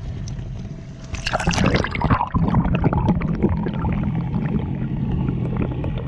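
A splash about a second in as the camera goes into the sea. Then muffled underwater bubbling and gurgling.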